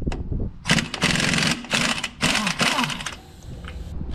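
A 3/4-inch-drive impact wrench with an inch-and-a-half socket hammers on a large bolt of heavy equipment. It comes in three rapid rattling bursts, starting about a second in and stopping just after three seconds.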